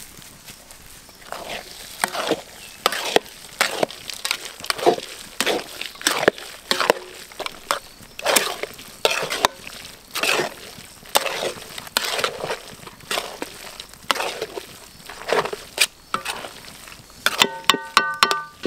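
A ladle scraping and knocking around a cooking pan in irregular strokes, about one or two a second, while the coconut burfi mixture is stirred. Near the end comes a brief ringing note.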